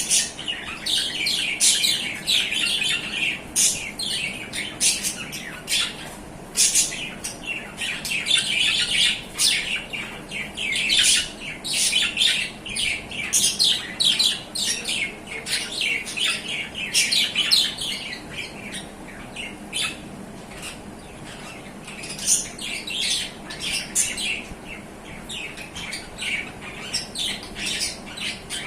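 Budgerigars chattering without pause, a rapid run of chirps and warbles broken by sharper squawks.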